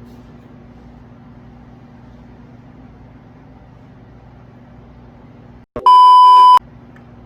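Microwave oven running with a steady low hum. Near the end comes a single loud electronic beep, one flat tone just under a second long.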